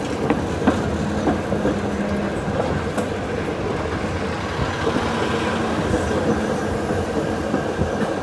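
F Market streetcar rolling along its track, heard from inside through an open window: a steady rumble of wheels on the rails with a few sharp clacks in the first second. A low hum comes and goes twice.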